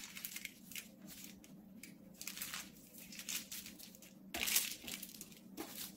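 Aluminium foil crinkling as it is folded and rolled by hand around a RAM stick, in irregular rustles with the loudest burst a little past halfway.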